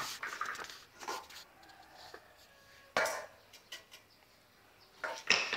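A metal basin and a broom knocking and scraping on wet floor tiles, with a sharp clatter about three seconds in and a louder one near the end.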